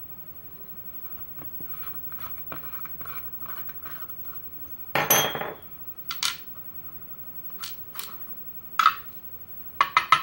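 Small metal clicks, taps and scrapes from working at the cap of a pin-tumbler lock cylinder with hand tools. There is one louder scraping clatter about five seconds in, and a few sharp clicks near the end.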